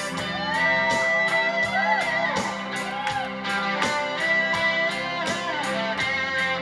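Live rock band playing: an electric guitar lead line whose held notes bend up and down in pitch, over a steady drum beat.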